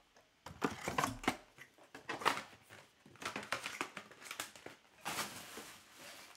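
Crinkling and rustling of trading-card pack wrappers and cards being handled, in irregular bursts of crackle and tapping.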